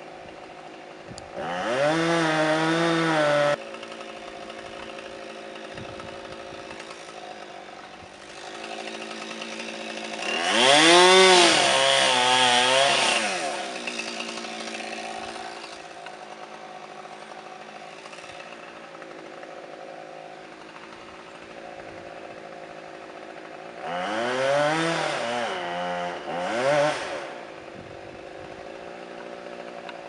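Two-stroke chainsaw, likely the Husqvarna 357XP, idling steadily and revved up several times for a few seconds each. Each rev climbs in pitch and falls back to idle: once near the start, once in the middle, and twice in quick succession near the end.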